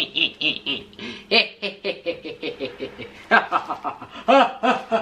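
A person laughing in quick breathy bursts, about five a second, in three runs with short breaks, loudest in the last two seconds.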